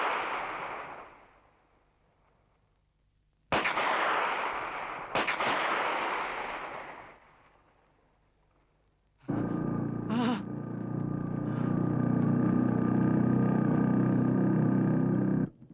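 Cartoon gunshot sound effects: two sudden loud shots about a second and a half apart, each dying away slowly with an echo. About nine seconds in, a motorcycle engine starts up and runs steadily until it cuts off just before the end.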